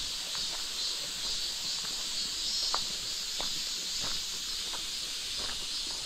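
A steady, high-pitched chorus of insects, with light irregular crunching footsteps on a gravel path.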